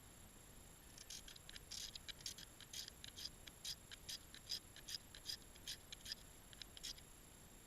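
Magnesium fire starter (SOL MagStriker) being scraped with its striker in a rapid series of short, sharp strokes, about two to three a second, starting about a second in and stopping near the end.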